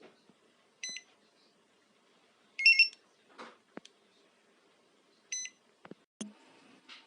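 Car alarm key fob beeping: a short electronic beep about a second in, a louder quick run of beeps near three seconds, and another short beep past five seconds. A few soft clicks fall between them.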